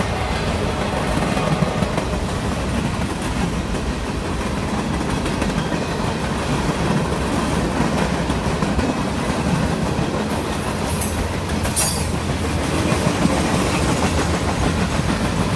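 Freight train boxcars rolling past close by: a steady rumble with the clatter of steel wheels over the rail joints. A couple of brief high-pitched squeals come about two-thirds of the way through.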